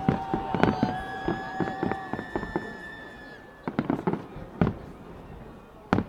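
Fireworks display: a dense crackle of small bursts with several thin, high whistling tones held for two or three seconds, then separate loud bangs about four and five seconds in and one near the end.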